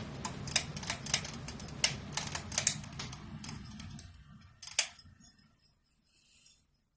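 Quorum Capri 29-inch ceiling fan with its steady motor and air noise dying away about four seconds in, over a run of irregular sharp clicks and one loud click about five seconds in.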